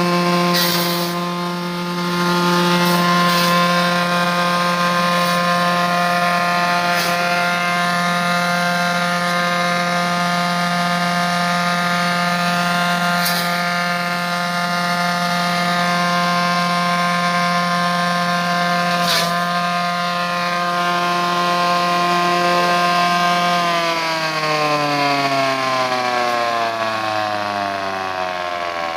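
Electric grass chopper, driven by a 2 hp electric motor, running at a steady pitch with a few sharp clicks. About 24 seconds in it is switched off and its pitch falls steadily as the motor and blades spin down.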